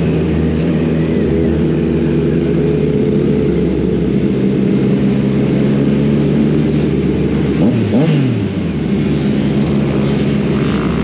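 Motorcycle engines running steadily, with one engine revving up and dropping back about eight seconds in.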